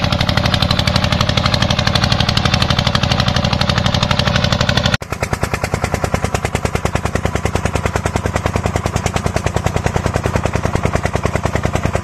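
Small engine of a walk-behind trenching machine running hard with a rapid, even beat while it cuts a trench in soil. About five seconds in the sound breaks off sharply and a second small farm machine's engine carries on with the same rapid beat, a little quieter.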